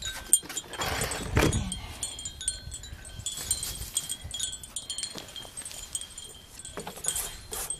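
Wind chimes ringing, with light high metallic tinkling that keeps sounding throughout. A short rush of noise comes about a second in.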